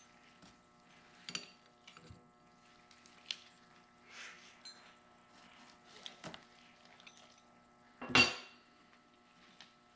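Steel wrenches and hydraulic hose fittings clinking and knocking on a workbench as tools are picked up and set down, with a louder ringing metal clank about eight seconds in. A faint steady hum runs underneath.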